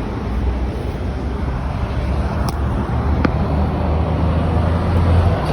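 Steady low rumble of a motor vehicle, with two short clicks near the middle.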